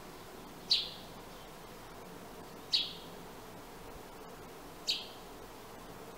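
A sparrow chirping: three short, sharp chirps about two seconds apart, each dropping quickly in pitch, over a steady hiss.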